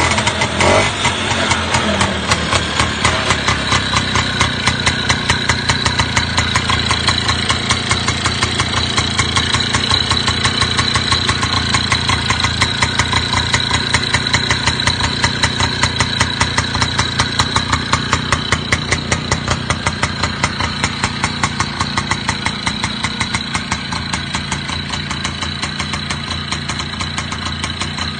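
1957 Tohatsu 98cc motorcycle's two-stroke engine running with a steady, fast pulse. Its pitch falls back over the first couple of seconds as the throttle closes, then it settles to idle.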